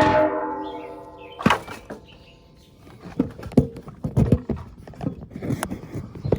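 A struck metal part ringing like a bell and dying away over the first second and a half. It is followed by a sharp knock and then a run of irregular metal knocks and clanks, typical of chains and equipment being worked while unloading machinery from a trailer.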